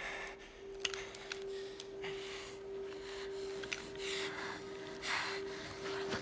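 Heavy, shaky breathing and gasps, a breath roughly every second, over a single held note of film score. A few faint clicks fall in between.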